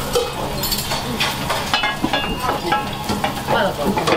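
Restaurant kitchen clatter: metal utensils, pans and dishes clinking and knocking in quick, irregular succession over food frying in pans, with a steady low hum underneath.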